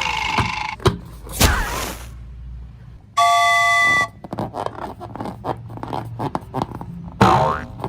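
Edited sound effects: a short swish, then a steady chime-like tone held for about a second, followed by a run of fast clicks and crackles and a sharper burst near the end.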